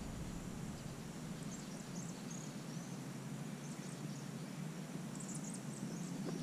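Faint natural outdoor ambience: a soft, even hiss with scattered short, high, thin chirps from small wildlife such as insects and birds.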